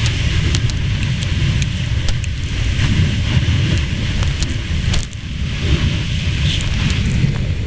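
Jet blast from a twin rear-engined airliner spooling up for takeoff: a loud, heavy rumbling roar and wind buffeting the microphone, with scattered sharp ticks. The blast eases briefly about five seconds in.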